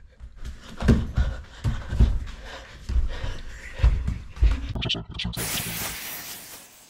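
Several heavy, dull thuds mixed with grunting, panting breaths. About five seconds in, a loud hiss starts suddenly and lasts about a second and a half.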